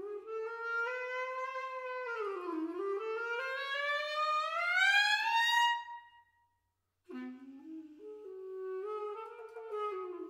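Solo clarinet playing a slow sliding line. The pitch dips, then glides steadily upward over a few seconds while growing louder, and breaks off about six seconds in. After about a second's pause it comes in again low and climbs in small steps.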